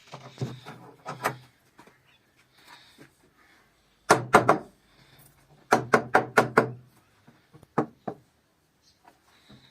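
Sharp knocks on wood, struck in quick runs of several blows with short pauses between, like hammer or mallet strikes during door joinery.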